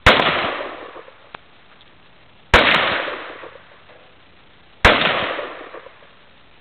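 SKS semi-automatic rifle firing three single shots of Tula 7.62x39 ammunition, about two and a half seconds apart, each report ringing out and fading over about a second.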